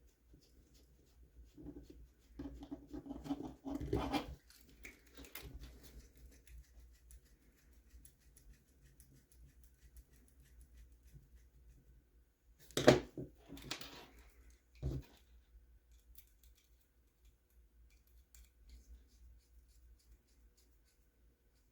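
Small 3D-printed plastic parts being handled and fitted by hand: a few seconds of scraping and rattling, then a sharp knock about 13 seconds in and a smaller one about two seconds later, with faint clicks in between.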